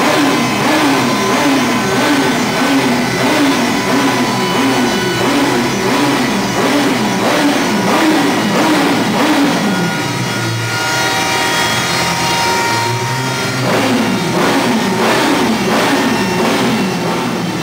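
Background rock music with a steady beat and a short rising figure that repeats about every 0.7 seconds.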